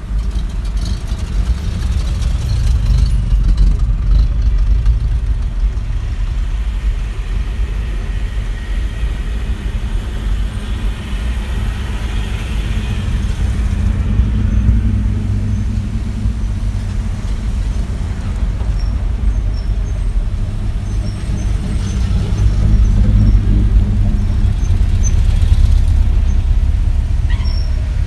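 Classic cars driving past one after another, their engines running and tyres rolling, as a steady low rumble that swells as each car goes by.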